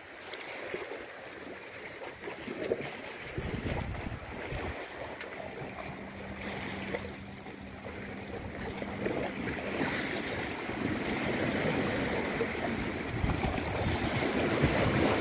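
Small sea waves washing and splashing against shoreline rocks, with wind buffeting the microphone; the wash grows louder over the last few seconds.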